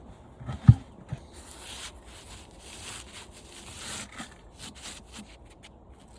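A sharp thump a little under a second in, then irregular scraping and rustling with small clicks as thin aluminium fins are worked off an air-conditioner radiator coil.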